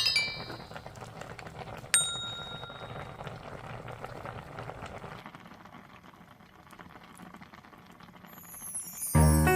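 Faint bubbling of a pot of spicy braised chicken simmering, fading away after about five seconds. A single bright ding sound effect rings out about two seconds in, and background music comes back in near the end.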